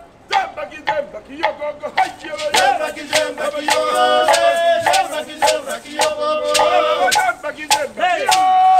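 Live African-style group performance: several voices singing and chanting together over sharp hand-drum and percussion beats, the singing joining in about two seconds in.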